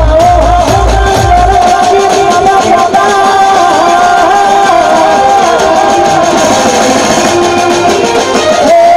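Live Gujarati folk music with a man singing a slow melody of long, ornamented notes over the band. The low drum beat drops out about two seconds in and comes back at the very end.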